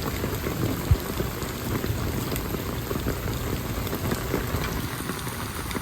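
Heavy rain pouring down, a steady hiss of many fine drop ticks, with one short low thump about a second in.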